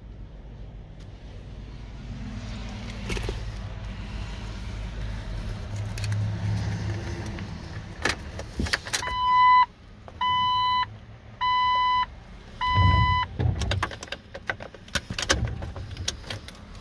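A car's dashboard warning chime beeps four times, evenly spaced a little over a second apart, each beep about half a second long. Sharp clicks come before and after the beeps.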